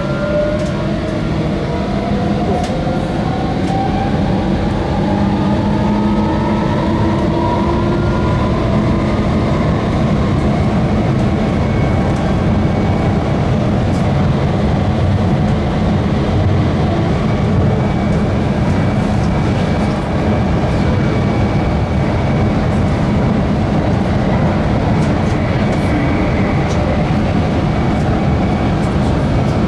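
Copenhagen Metro driverless train running through a tunnel, heard from inside the car. A steady rumble runs under an electric motor whine that rises in pitch over the first several seconds as the train picks up speed, then the train runs on steadily.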